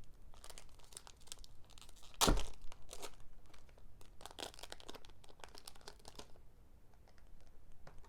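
Foil wrapper of a Japanese Pokémon card booster pack crinkling and being torn open by hand, with one louder sharp crackle about two seconds in. The rustling stops about six seconds in, leaving a few faint ticks.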